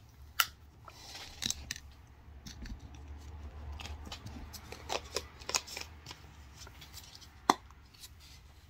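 Scattered faint clicks and crackles of plastic as a Coffee-mate creamer bottle is handled and opened by hand.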